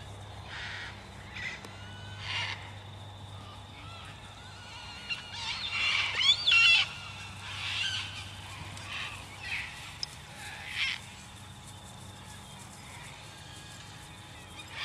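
Scattered short animal calls with pitch that bends up and down, the loudest a cluster about six seconds in, over a faint steady low hum.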